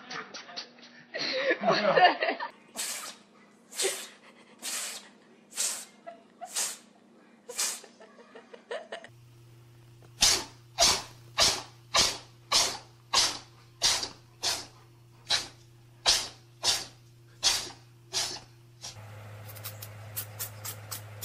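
A cat giving a long run of short, sharp breathy bursts, about one a second at first. After a cut they come about twice a second and louder. Near the end a kitten makes quicker, fainter sounds.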